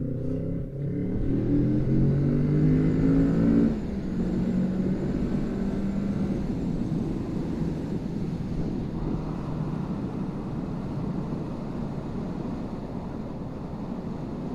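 Kawasaki Z650's parallel-twin engine revving up hard through an overtake, its pitch rising steadily. The revs drop sharply about four seconds in as the throttle is eased, and the engine then runs on more quietly under wind rush.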